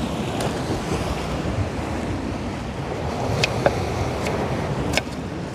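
Steady rushing of sea surf on a rocky shore, with wind buffeting the microphone. A few sharp clicks sound in the second half.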